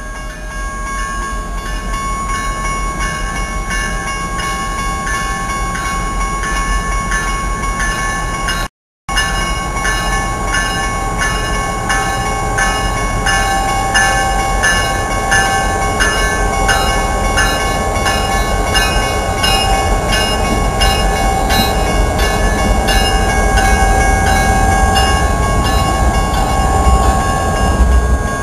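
Railroad grade-crossing bells ringing in a steady, even repeat while a BNSF freight led by EMD GP39-2 and GP38-2 diesel locomotives rolls through the crossing, the locomotives' rumble growing louder toward the end. The sound drops out completely for a moment about nine seconds in.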